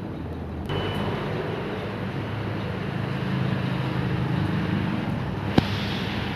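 Small engine running steadily. A rushing noise joins it under a second in, and there is one sharp click about five and a half seconds in.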